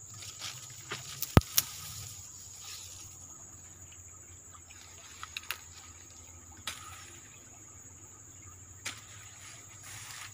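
A steady high-pitched insect drone, with scattered snaps and rustles of people moving through dense undergrowth. The sharpest snap comes about one and a half seconds in.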